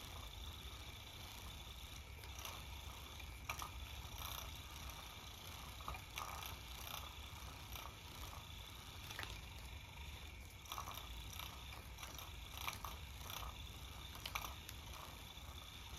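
Battery-powered cat toy running, its motor making a faint steady whir as it swings a feather attachment around, with scattered light ticks and rustles from the feathers and a cat's paws.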